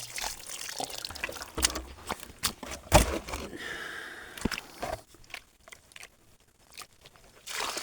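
Gold pan being worked with gravel and water: crunching stones, small clicks and dripping as fresh material goes into the pan, with one sharp knock about three seconds in. It goes mostly quiet after about five seconds, with only scattered small clicks.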